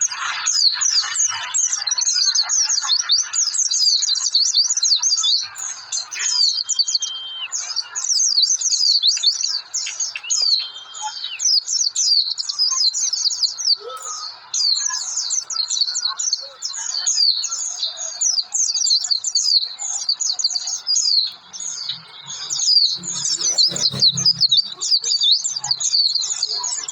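White-eye (pleci) singing a fast, unbroken high twittering chatter, with two steady whistled tones of about a second each, around six and ten seconds in.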